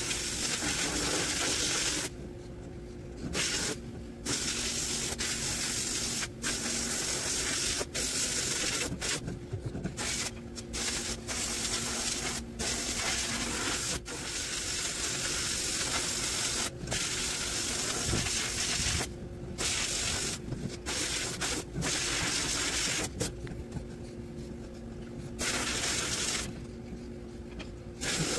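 Sandblasting cabinet nozzle blasting abrasive onto rusty, painted reel mower parts: a loud rushing hiss that stops and starts many times, with a few longer pauses of a second or two. A steady low hum carries on underneath.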